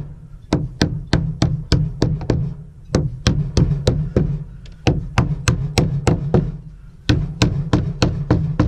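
Ball-peen hammer tapping repeatedly on the ends of winch mounting bolts to drive them up through the deck: sharp knocks, two to three a second, with two short pauses.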